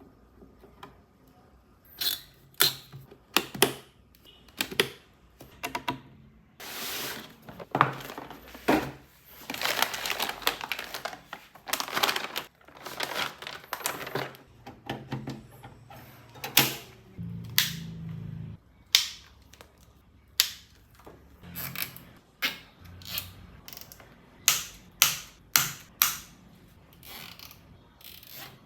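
Sharp clicks and snaps of computer parts being fitted and latched into a PC build, coming one after another at irregular intervals, with a few longer, noisier handling sounds between about 7 and 14 seconds in.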